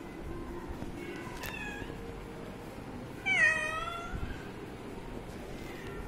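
Young cats meowing: a couple of faint meows early on, then one loud meow about three seconds in, about a second long and falling in pitch.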